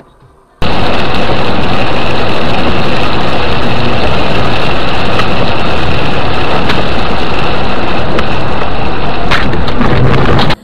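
Heard inside a car driving through heavy rain, a loud, steady roar of tyre and rain noise overloads the dashcam's microphone. It starts and stops abruptly, and a few sharp knocks come near the end.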